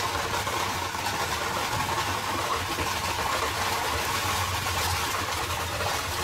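Steady rolling noise of a horse-drawn carriage moving along a paved street: a continuous rumble and hiss of the wheels and carriage.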